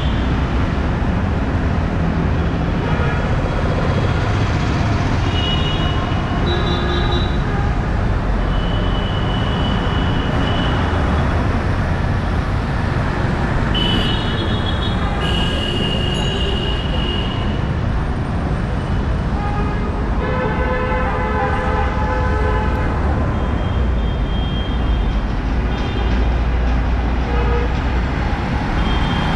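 City street traffic: a steady rumble of engines and tyres, with vehicle horns honking again and again in several different pitches, the longest about halfway through.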